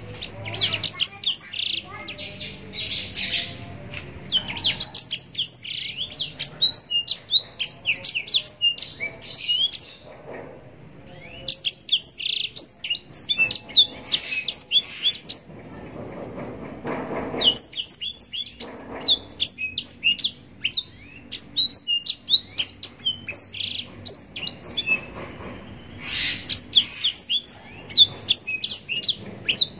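Black-throated canary (blackthroat) singing: long, fast phrases of high, quick down-slurred chirps and trills with brief pauses between phrases.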